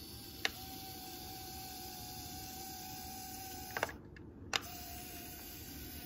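Small electric gear motors of a 1/50 scale RC CAT D6K bulldozer model whining faintly and steadily as it drives and turns. There are a few sharp clicks, one about half a second in and a pair near the middle, and after them the whine carries on at a slightly lower pitch.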